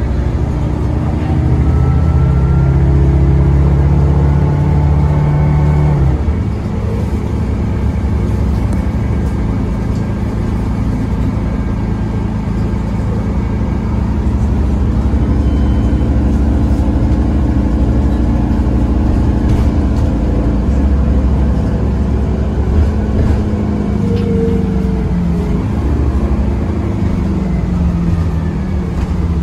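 Inside a Grande West Vicinity CNG bus on the move: the Cummins B6.7N natural-gas engine and Voith four-speed automatic pulling under way. The engine note rises for the first few seconds, then changes abruptly about six seconds in, a gear shift, then holds steady. It falls in pitch near the end as the bus slows.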